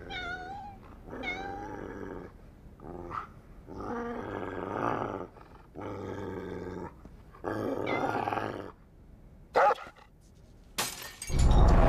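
A bull terrier grumbling and whining in a string of short bursts, the first ones with a wavering pitch, the later ones rougher and growly. About a second before the end a loud, heavy noise cuts in.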